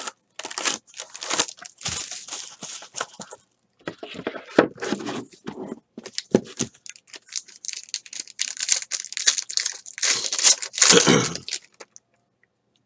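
Foil wrappers of Grand Reserve basketball card packs crinkling and rustling in the hands in several spells, then a pack being torn open, loudest near the end.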